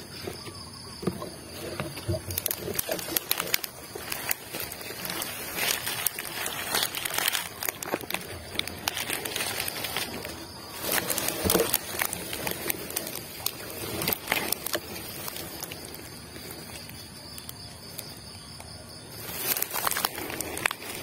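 Irregular rustling and crackling, as of leaves and twigs being moved through or handled, with scattered sharp clicks. One click about halfway through is louder than the rest.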